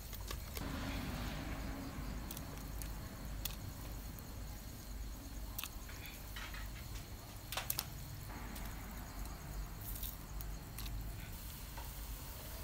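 A large pot of water boiling hard, with scattered light clicks and taps of a metal spoon against a woven bamboo strainer, over a steady low rumble.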